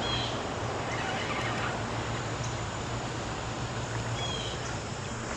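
Steady rushing of river water, with a low steady hum underneath and a few faint, short high chirps.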